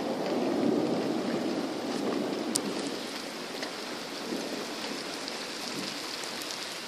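Rain falling steadily in a thunderstorm, with a rumble of thunder fading away over the first few seconds.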